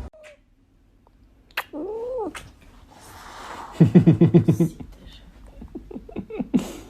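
A cat meows once, a short call that rises and then falls in pitch. A couple of seconds later comes a louder, longer call made of rapid stuttering pulses.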